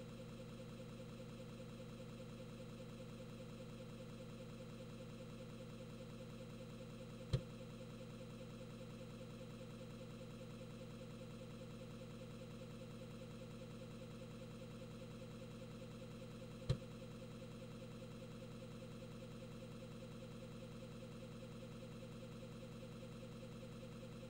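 Emulated floppy disk drive, a steady faint hum of the spinning drive with two single clicks, about seven and seventeen seconds in.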